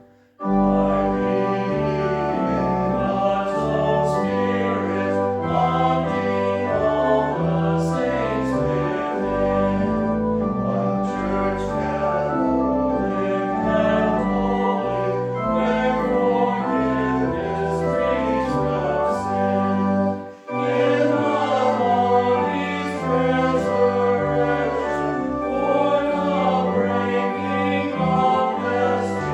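A hymn sung by a choir with organ accompaniment. It starts just after a brief silence, breaks off for a moment about twenty seconds in, and then carries on.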